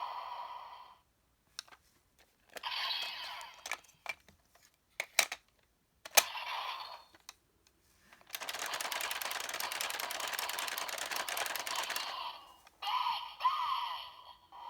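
Sentai role-play toy sound effects through a small toy speaker: electronic tones and effects, with sharp clicks, then a dense rapid clattering lasting about four seconds from about eight seconds in.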